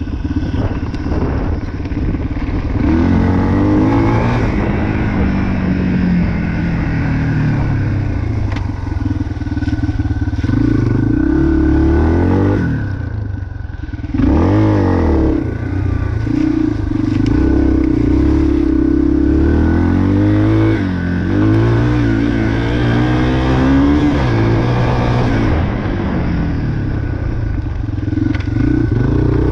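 2022 Yamaha TT-R230 dirt bike's single-cylinder four-stroke engine under way, its pitch repeatedly rising and falling with the throttle and gear changes, and easing off briefly about halfway through.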